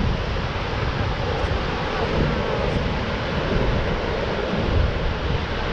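Steady roar of Dettifoss, a very powerful waterfall: a dense, unbroken rush of falling water with a deep rumble underneath.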